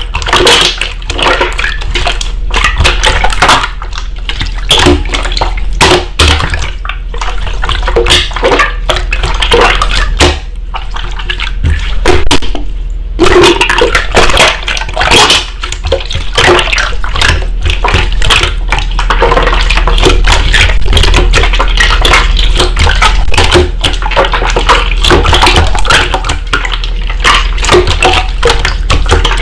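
Slime being squeezed, pressed and stretched by hand close to the microphone: a dense, continuous run of crackles, clicks and squelches, with a short lull about twelve seconds in.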